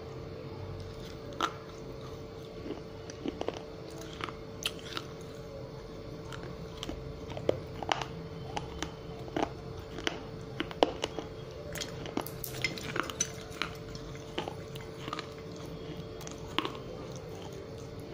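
Crunching and chewing of broken fired-clay diya pieces in the mouth: irregular sharp crunches and crackles, a few to several a second, over a steady faint hum.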